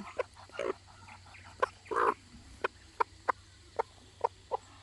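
Chickens clucking: a run of short, sharp clucks with one longer, louder call about two seconds in.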